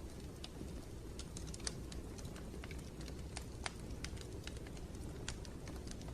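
Irregular light clicks and ticks, several a second with no steady rhythm, over a low steady rumble.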